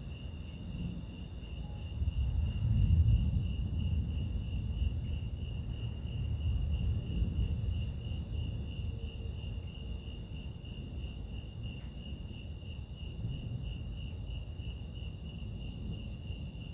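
Crickets chirring in a steady high chorus that pulses about four times a second, over a low rumble that swells about two to four seconds in.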